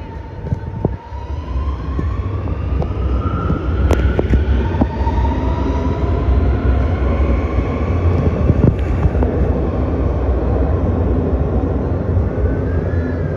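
Six-car metro train running past close by, a strong low rumble under a motor whine that rises in pitch as it speeds up, with a few sharp clicks along the way.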